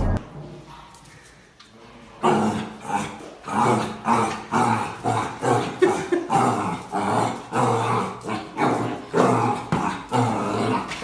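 A dog vocalising in a quick run of short, repeated sounds, about two a second, beginning about two seconds in after a brief quiet.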